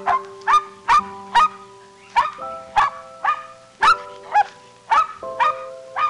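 A dog barking repeatedly, about two barks a second, each bark quick and sharp, over background music of held chords.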